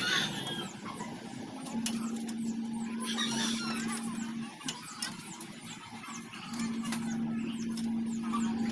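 A steady low whine that comes and goes, running about three seconds at a time, with scattered light clicks and a brief hiss about three seconds in.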